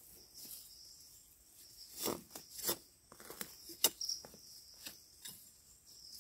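Soft, scattered snaps, clicks and rustles of wild mushrooms being plucked by hand from leaf litter, several in a row over a few seconds. A faint high insect trill comes and goes in the background.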